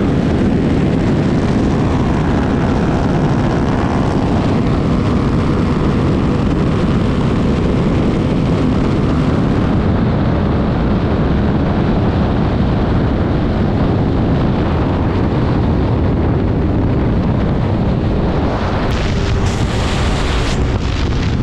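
Heavy, steady wind rush over an action camera's microphone on a motorcycle at about 200 km/h, with motorcycle engine and road noise underneath.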